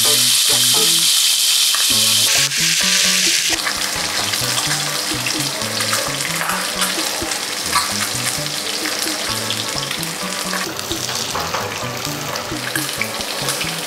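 Chitala fish steaks sizzling and crackling as they pan-fry in hot oil, the sizzle loudest in the first couple of seconds. Background music with a repeating bass line plays underneath.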